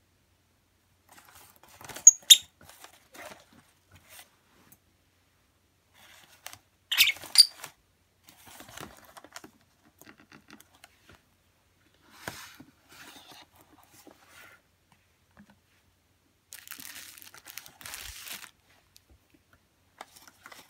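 A Fischer's lovebird scrabbling about inside a box folded from paper flyers: stop-start crinkling and scratching of the paper, with a few sharp louder clicks about two seconds in and again around seven seconds, and a longer rustle near the end.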